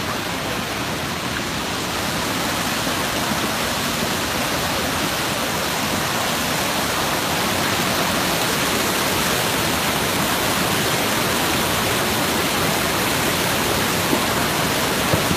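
Fast muddy floodwater rushing and churning in a torrent: a steady, loud rush of water that grows slightly louder about two seconds in.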